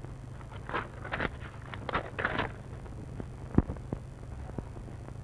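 A few short scuffing noises, then one sharp knock about three and a half seconds in, over a steady low hum.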